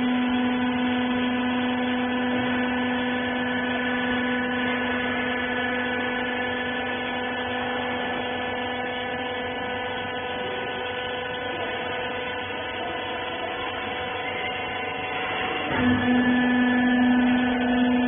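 Rag baler machine running with a steady mechanical hum of several constant tones. About 16 seconds in there is a brief knock, after which the low note of the hum is stronger.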